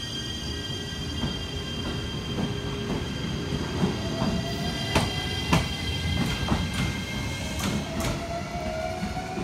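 JR Shikoku 7200 series electric train accelerating away. Its Toyo IGBT VVVF inverter and traction motors whine in steady high tones, with a lower tone rising slowly as it gathers speed. The wheels clack over rail joints throughout.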